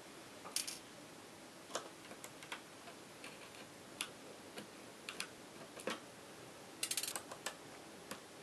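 Small, light metallic clicks and ticks from pliers and a thin screwdriver working the screws out of a laptop screen's edge, scattered irregularly with a quick rattle of several clicks about seven seconds in.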